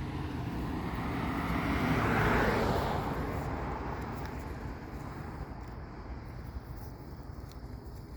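Airplane passing overhead: a broad, even engine noise that swells to its loudest a little over two seconds in, then slowly fades.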